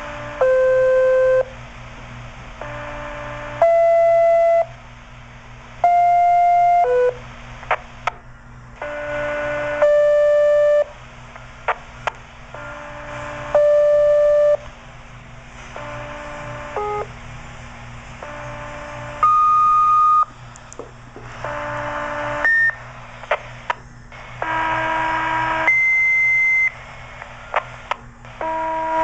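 Fire dispatch pager alert tones heard over a radio scanner: a string of two-tone sequential tone-outs that alert several fire companies' pagers. The steady beeps last about a second each, step between different pitches and come in pairs every two to three seconds. Short radio clicks fall between them, over a low steady hum.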